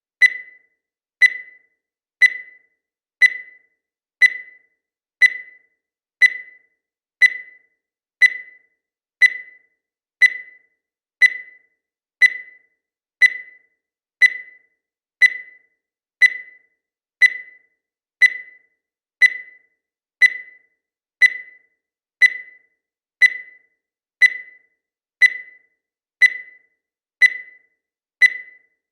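Digital countdown timer beeping once a second: short, high beeps that die away quickly, about twenty-nine in steady succession.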